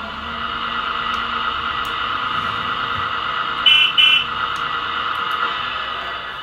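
Sound module of a Volvo EC480D scale model excavator playing a steady engine-running sound through its small speaker, with two quick electronic beeps in the middle.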